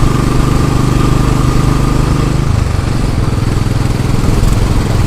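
Royal Enfield Classic 500's single-cylinder engine running while the bike is ridden, with a steady haze of wind and road noise. The engine note drops a little about halfway through.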